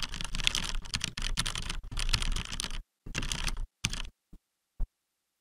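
Fast typing on a computer keyboard: a dense run of keystrokes for about three seconds, then two shorter bursts and a couple of single key presses before it stops.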